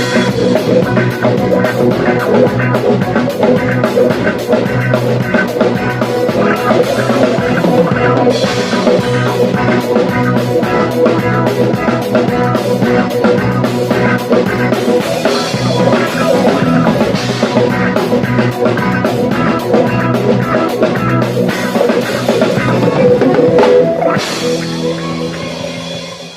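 Band music led by accordion, with a drum kit keeping a busy beat; near the end it closes on a long held chord that dies away.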